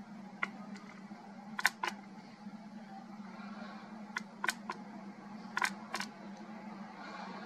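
Handling noise from a video camera: a steady low hum with about nine sharp clicks and taps scattered through, several in close pairs.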